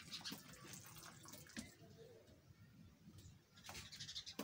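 Faint rustling and scattered clicks of a buck and doe goat moving about on a dirt floor, with a cluster of louder rustles near the end.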